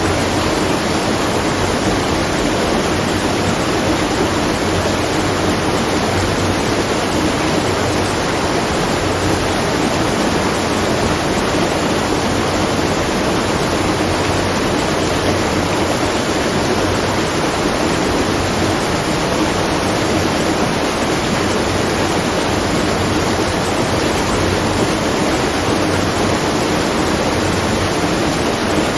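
Steady rush of falling water at a watermill, an even noise that does not change.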